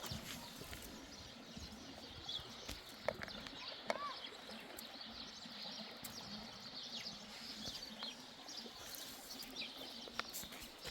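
Small birds chirping over a steady background hum, with a few sharp knocks.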